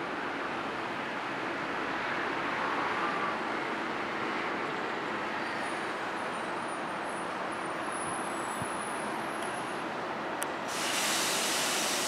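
New York City subway train running through the station: a steady rumble and rush of wheels and running gear, with a sudden louder hissing noise coming in near the end.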